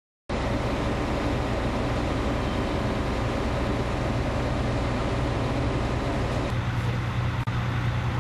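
Heavy vehicle engine running steadily with a strong low hum. About six and a half seconds in the higher noise thins out, leaving the low hum, and there is a single sharp click about a second later.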